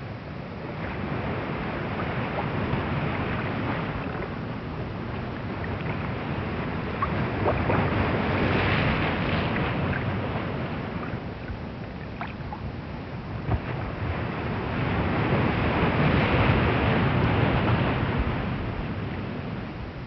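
Ocean surf: waves breaking and washing on a shore, the rush of water rising and falling in slow swells, with a few faint ticks.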